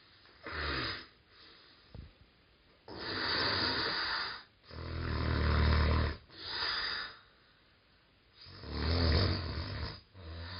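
Snoring: a run of rasping breaths with short pauses between them, the loudest coming about halfway through and again near the end.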